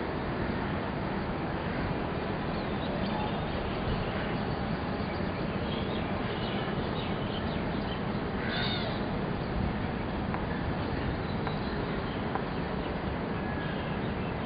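Steady open-air background noise, heaviest in the low end, with faint scattered bird calls over it; one call stands out more clearly about eight and a half seconds in.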